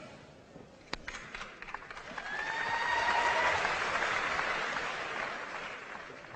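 Theatre audience applauding, swelling about two seconds in and dying away toward the end.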